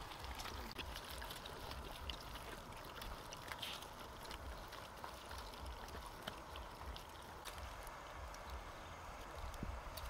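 Dogs chewing and gnawing chunks of cooked pork, with faint, irregular clicks and crunches over a low rumble.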